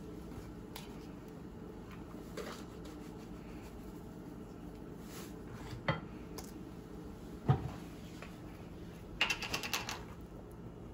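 Slotted spatula knocking and scraping in a nonstick skillet as walnuts are stirred. A few separate sharp knocks come around the middle, the loudest about halfway through, and a quick run of clicks follows near the end.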